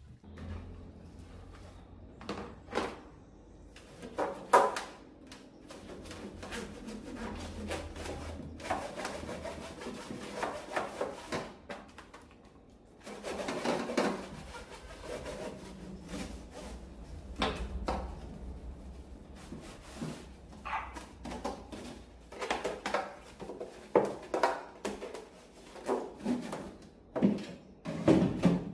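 Repair-bench handling noises: scattered knocks, clicks and rubbing over a steady low hum.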